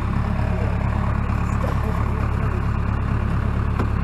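Tractor engine running steadily, a low even rumble.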